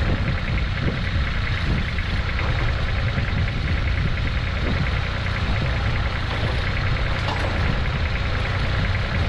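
Small garden tractor's engine idling steadily with a low rumble.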